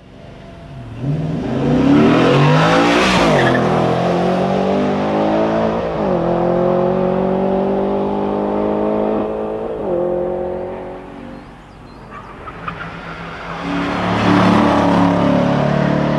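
Aston Martin Vantage engine accelerating hard through the gears. The pitch climbs and drops at each upshift, about six and ten seconds in, then fades away before a second run builds up near the end.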